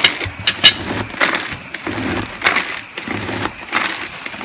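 Pull-cord manual food chopper worked with several quick pulls in a row, each pull a short rattling burst as the spinning blades chop cooked chicken breast with mayonnaise and mustard into a paste.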